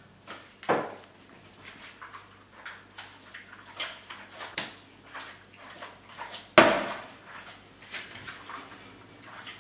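Pasta in carbonara cream being tossed in a nonstick frying pan: a run of soft, wet slaps and shuffles as the pan is jerked, with one sharper knock about six and a half seconds in.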